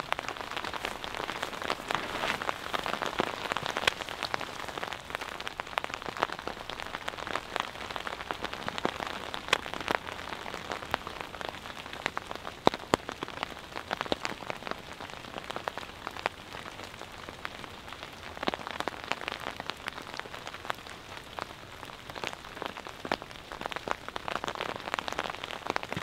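Freezing rain falling steadily, with many separate drops ticking sharply and irregularly on a nearby surface.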